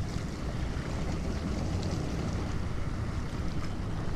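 Steady wind rumbling on the microphone over sea waves washing against the reef rocks.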